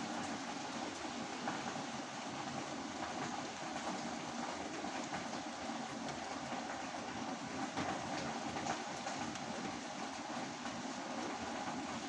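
Steady rain falling: a dense, even hiss with scattered sharper drop taps.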